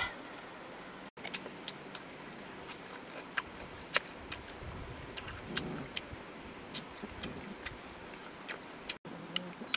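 Puppies eating grilled fish: irregular wet clicks and smacks of chewing and lapping, over a steady low hiss.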